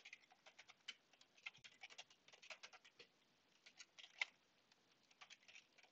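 Computer keyboard typing, faint: a run of quick, separate key clicks, with a short pause about three seconds in.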